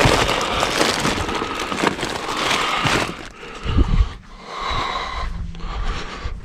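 Plastic bags and packaging rustling and crinkling as food is rummaged out of a dumpster, dense for about three seconds, then quieter with a couple of dull thumps about four seconds in.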